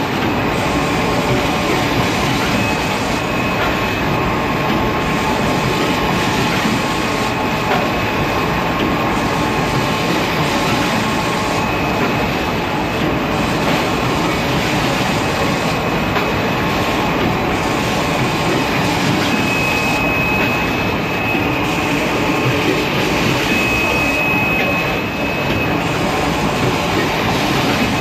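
Automatic kitchen towel packing machine running: a steady, dense mechanical clatter with a thin high whine that grows stronger twice near the end.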